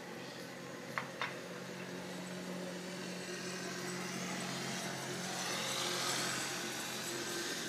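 An engine running with a steady hum, its noise swelling to its loudest near the end and then easing off. Two sharp clicks come about a second in.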